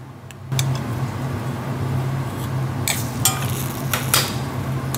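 Metal spoon stirring honey sauce in a stainless steel saucepan, scraping and clinking against the pan, with a few sharp clinks around three and four seconds in. A steady low hum runs underneath.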